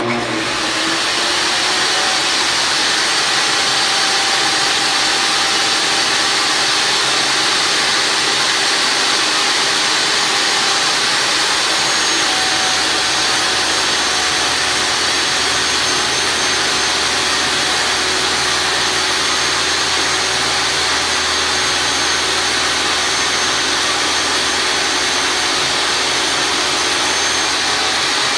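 Craftsman 21807 10-inch table saw switched on, spinning up almost at once and then running steadily. Meanwhile a white-faced particleboard panel is fed through the blade.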